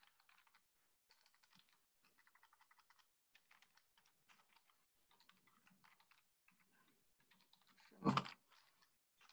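Faint typing on a computer keyboard: quick runs of key clicks broken by short pauses, with one louder thump about eight seconds in.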